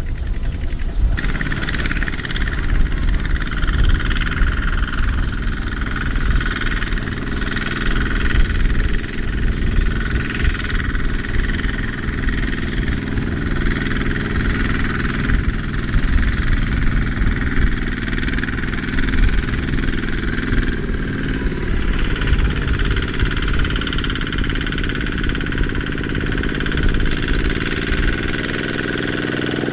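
Tractor engine running steadily under load. Near the end the deep low rumble drops away.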